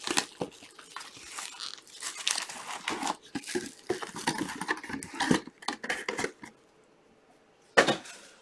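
Plastic wrapping on a box of trading-card packs crinkling and tearing as it is unwrapped and handled. The crackling is irregular, stops for about a second, then comes back in one short loud burst near the end.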